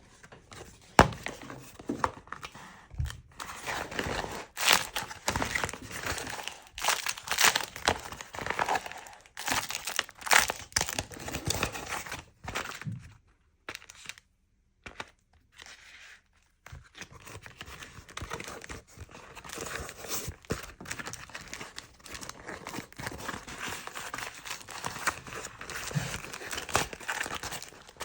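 Beeswax food wrap being handled and pressed into shape, crinkling and crackling in irregular bursts, with a pause of a few seconds about halfway through.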